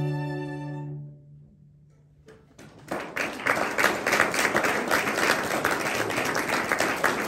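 A string ensemble's final held chord fades out about a second in. After a short silence, audience applause starts and keeps going.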